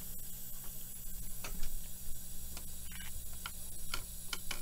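PLAYZ toy steam engine model running with its steam feature switched on: a steady high hiss over a low electrical hum, with a few light, irregular ticks.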